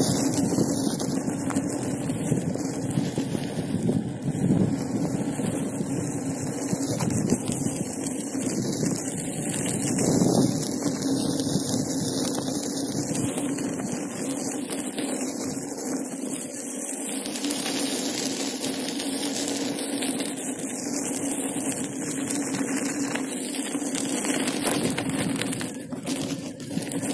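Inmotion V5F electric unicycle riding over a dirt path: a steady hum with the noise of the tyre rolling on dirt and gravel, and wind on the microphone.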